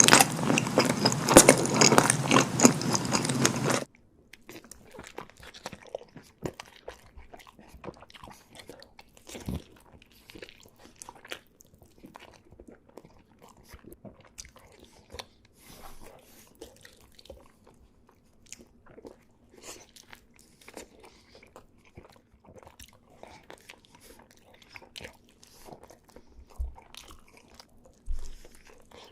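Close-miked eating of chilli cheese dogs: loud, crunchy biting and chewing for the first few seconds that cuts off abruptly, then faint chewing with scattered small mouth clicks and crackles.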